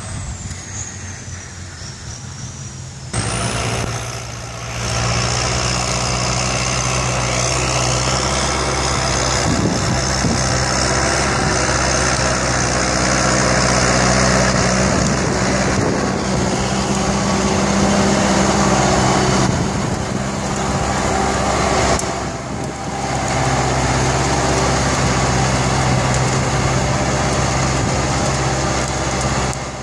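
Kubota tractor's diesel engine running steadily under load while pulling a disc plough through dry soil. The engine note is quieter at first and jumps louder about three seconds in, with a couple of brief dips later.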